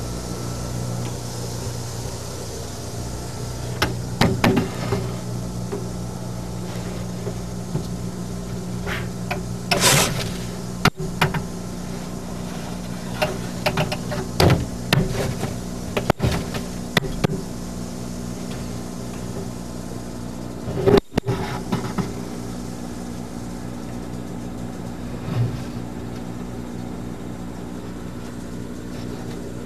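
A steady, low mechanical hum, with scattered short knocks and bumps coming irregularly, the loudest about four seconds in and about twenty-one seconds in.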